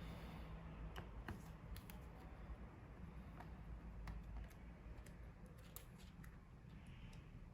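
Faint, scattered light clicks and taps of a laptop being taken apart by hand with small tools, over a low steady hum.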